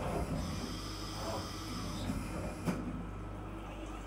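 Flood coolant splashing over an aluminium workpiece inside the SYIL X5 CNC mill's enclosure, over the machine's steady hum. There is a single light click about two-thirds of the way through.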